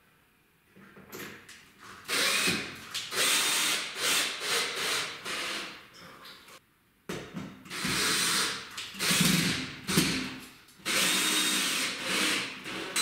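Electric drill driving self-tapping screws through a steel drywall ceiling profile into wooden ceiling boards. It runs in several bursts with short pauses, starting about two seconds in.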